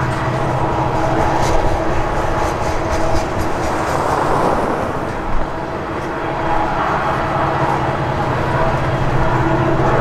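Steady mechanical rumble of a heavy vehicle, with a low droning hum and a swell about four seconds in.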